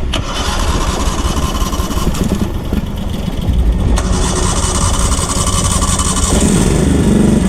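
Small gasoline engine on a job-site machine, likely a power buggy, being started and then running. It picks up speed and gets louder near the end.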